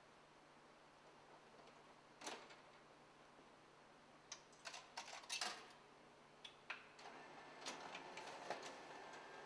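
Faint handling clicks at an office photocopier: a click about two seconds in, then a cluster of clicks around four to five and a half seconds in as the lid is lowered and the controls are pressed. From about seven seconds the copier runs with a soft steady sound and light ticking.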